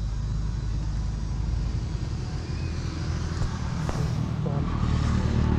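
A vehicle engine running steadily on the move: a low drone with road noise, growing a little louder near the end.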